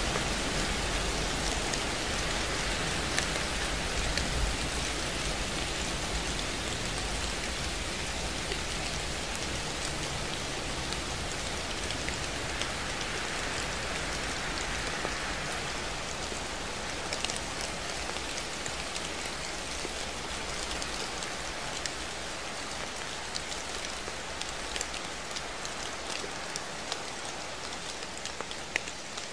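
Steady rain falling, with scattered drop ticks, easing slightly quieter toward the end.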